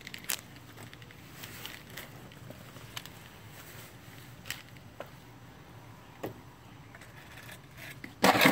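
Scattered light clicks and scuffs of footsteps and handling. Near the end, a loud, brief plastic clatter as a plastic bucket is knocked over with a long-handled grabber pole.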